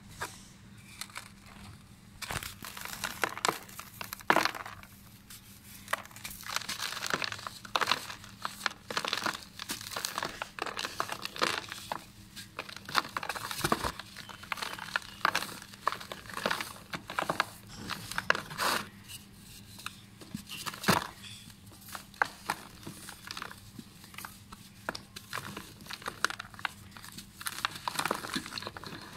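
Dry red dirt blocks crushed and crumbled by hand, giving a dense run of short gritty crackles that starts about two seconds in, with crumbs and powder falling into a plastic tub.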